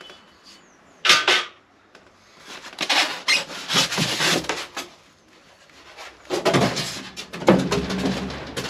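Expanded-polystyrene foam packaging being worked loose and lifted out of a cardboard box, the foam rubbing and scraping against the cardboard in two long stretches, after a sharp knock about a second in.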